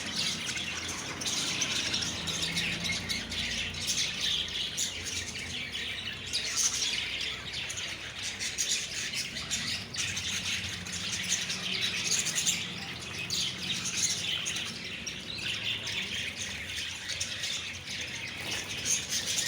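Lovebirds chattering and chirping without pause, a dense stream of high, quick calls with the odd louder squawk.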